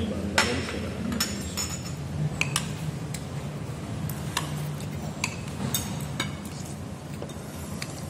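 Metal spoons clinking and scraping against ceramic plates and a bowl as rice is served at the table, in about a dozen scattered, irregular clinks over a low steady hum.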